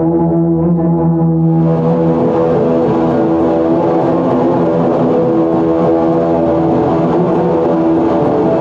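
Loud experimental drone from live electronics: a thick, steady chord of sustained low tones. A layer of hiss comes in about a second and a half in and stays on under the drone.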